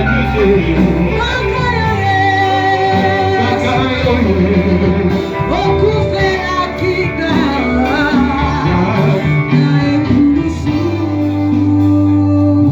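Worship music: voices singing a melody over instrumental accompaniment with held bass notes.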